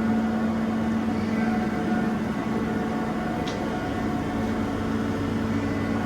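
Kao Ming KMC-636M portal milling machine running with a steady hum that holds a few even tones, and a brief faint high squeak about three and a half seconds in.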